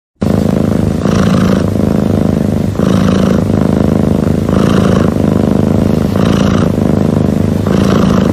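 Domestic cat purring loudly and continuously, a low rapid rumble with a rasping swell on each breath about every second and a half.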